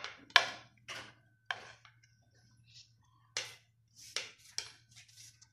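Metal spoons clinking and scraping against dinner plates while rice and daal are eaten: a string of sharp, irregularly spaced clinks over a faint steady low hum.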